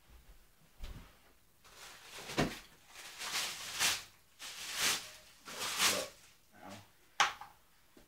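Packaging being handled while items are lifted out of a box: a run of rustling swishes with a few knocks.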